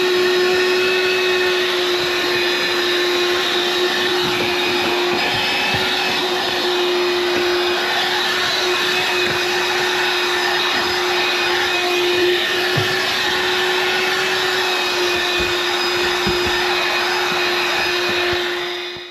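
Cordless 20-volt handheld vacuum running steadily, a constant motor whine over a rush of air, with a few faint low knocks in the second half. The sound cuts off abruptly at the end.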